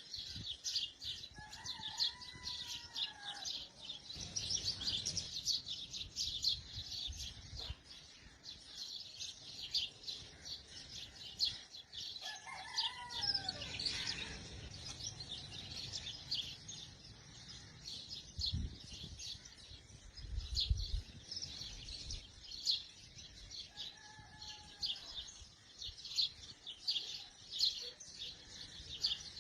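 Many small birds chirping constantly in quick, high notes. A longer arched call, rising then falling in pitch, comes three times: about two seconds in, around thirteen seconds and around twenty-four seconds.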